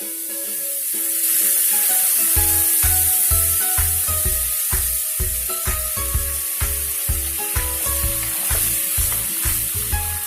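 Food frying in a hot pan with a steady sizzling hiss while it is stirred. Background music with a regular bass beat comes in about two seconds in.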